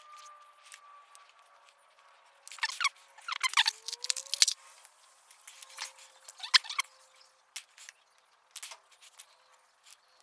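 Small clicks and crackles of hand work on wiring and a relay, loudest in short clusters about two and a half, three and a half and six and a half seconds in, over a faint whine that slowly falls in pitch.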